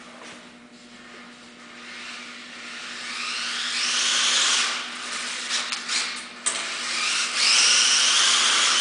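Xmod RC car with a T2 motor running at high speed: a high-pitched electric motor whine that rises in pitch twice as the car speeds up, loudest near the end. A few sharp clicks come in between.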